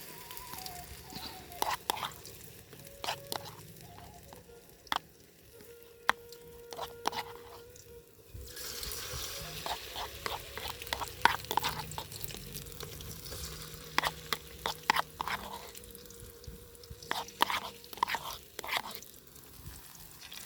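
Spinach-leaf peyek (batter crackers) frying in hot oil, sizzling and crackling, with many sharp clicks and taps. The sizzle grows fuller about eight seconds in.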